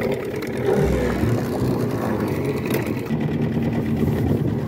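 Small outboard motor on a fishing boat running steadily under way, getting a little louder about a second in.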